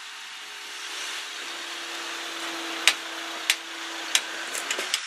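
Level crossing barrier mechanism raising the barriers: a steady motor hum, with several sharp clicks in the second half. The crossing is reopening to road traffic.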